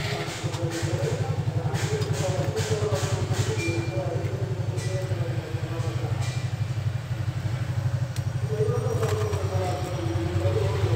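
An engine idles steadily with a low, fast even pulse. It is heard alongside faint background voices and a few light handling clicks.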